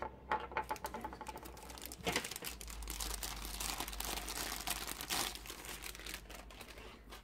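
Clear plastic packaging bag crinkling and crackling as it is handled and the figure's base is pulled out of it. The crinkling is busiest in the middle and thins out near the end.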